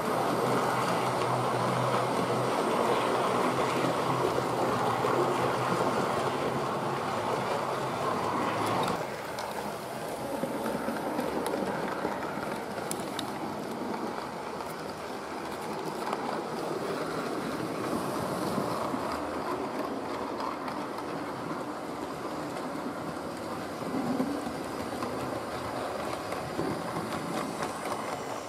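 OO-gauge model railway train running along the track: the steady whirr of the locomotive's motor and its wheels on the rails. It is louder for the first nine seconds, then steps down suddenly and carries on more quietly.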